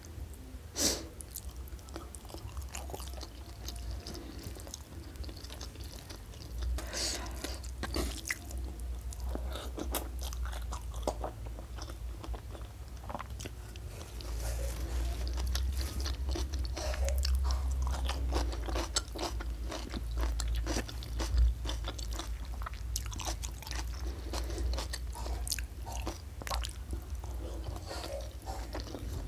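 Close-miked chewing and mouth sounds of someone eating rice and fish in green chili sambal by hand, with many short, irregular clicks and some crunchy bites, louder in the middle stretch.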